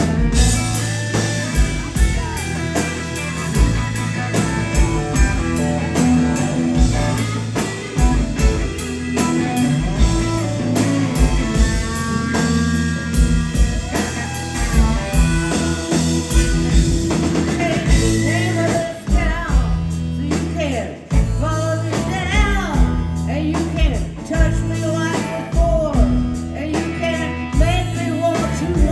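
Live blues-rock band playing at full volume: drum kit, bass and electric guitars, with singing in the latter part.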